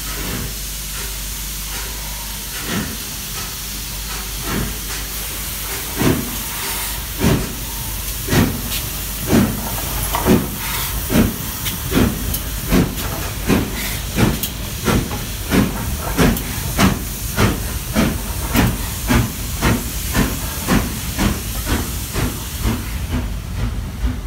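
LMS Princess Coronation Class Pacific steam locomotive 6233 Duchess of Sutherland starting away from a standstill. Open cylinder drain cocks hiss steadily. Exhaust beats start about three seconds in and quicken from about one every two seconds to nearly two a second as the engine gathers speed. The hiss fades near the end.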